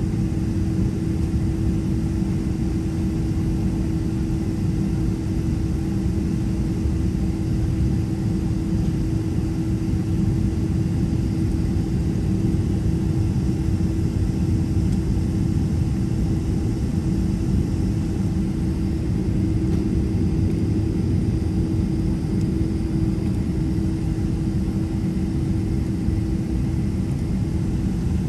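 Boeing 767-300ER's turbofan engines idling, heard from inside the cabin: a steady low rumble with a constant hum.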